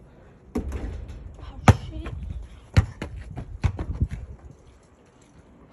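A basketball thudding several times as it hits and bounces, the loudest thud about a second and a half in and the last ones coming closer together.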